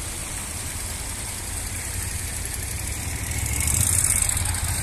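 Military vehicle engines running as the vehicles pass in a parade, growing louder from about three seconds in and loudest near four seconds.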